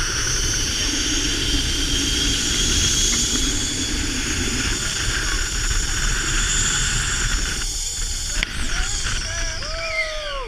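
Zip-line trolley pulleys running along the steel cable: a steady high whine and hiss over wind rumble on the microphone. Near the end, a click and a few short rising-and-falling squeals.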